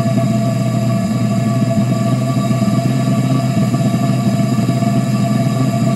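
Propane-air burner in a homemade combustion chamber burning steadily on compressed air, a constant rush with a steady low hum and a few fixed higher pitches over it.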